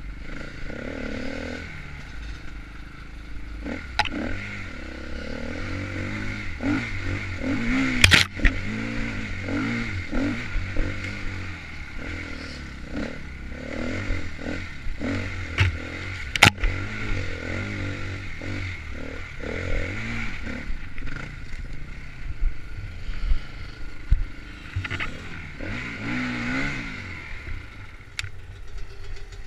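Enduro dirt bike engine revving up and down as it rides a rough trail, with clattering and scraping from the bike and sharp knocks. The loudest knocks come about 8 seconds in and again about 16 seconds in.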